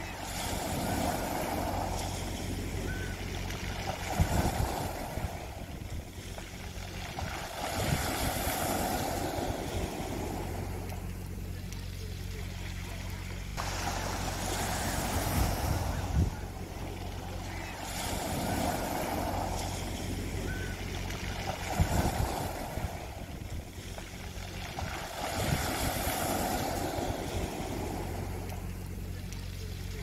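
Small sea waves breaking and washing over a pebble beach, each surge swelling and ebbing every few seconds. A steady low hum runs underneath.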